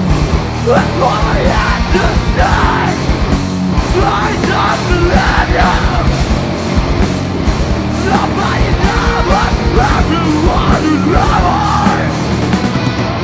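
A heavy rock band playing live: electric guitars, bass and rapid, dense drumming, with a singer yelling over them.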